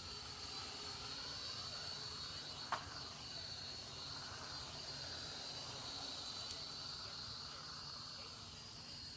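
A small quadcopter drone's motors whirring, their pitch rising and falling as it manoeuvres, over a steady high chorus of crickets. A single sharp click comes about three seconds in.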